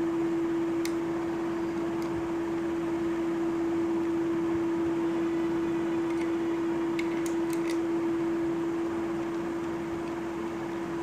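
A steady hum with one constant tone over an even hiss, with a few faint clicks from the plastic tripod head being handled and turned, about a second in and again around seven seconds in.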